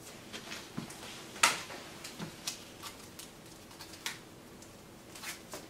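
Light handling sounds of a paper or cardboard record mailer being opened: scattered soft clicks, taps and rustles, with one sharper click about a second and a half in.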